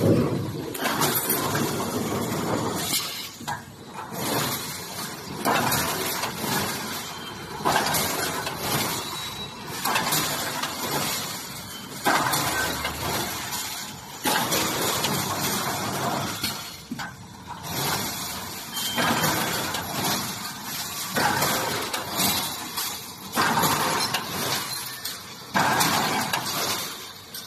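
Brick force wire mesh welding machine running through its cycle: a sharp metallic clatter about every two seconds, each dying away into mechanical running noise before the next.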